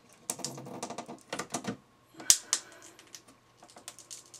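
Plastic lens of a Smart Forfour headlight being prised off its housing with a flathead screwdriver as it pulls free of the sealing mastic: rapid clicking and creaking, with one sharp crack about halfway through and then lighter ticks.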